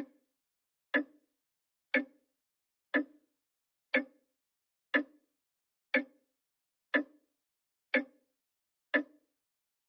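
Grandfather clock's pendulum escapement ticking steadily, one sharp tick each second, each with a short ringing decay.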